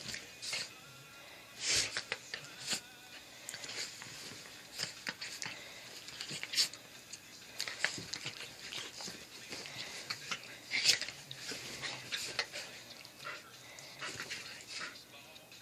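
Two dogs play-wrestling, one of them a dachshund: close-up snuffling, panting and wheezy breathing as they mouth at each other's faces, broken by short sharp bursts every second or two.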